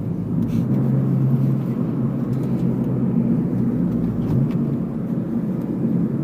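Engine and road noise inside the cabin of an Acura CSX being driven, a steady low rumble.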